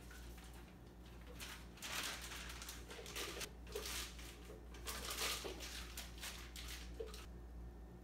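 Soft scraping and crinkling as macaron batter is handled, in a string of swishes spread over several seconds that stops near the end.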